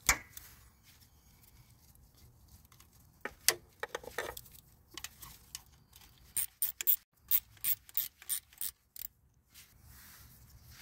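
Ratchet wrench with a small socket clicking as the 10 mm thermostat housing bolts are loosened: a sharp knock at the start, a few scattered clicks, then a run of quick clicks, about four a second, in the second half.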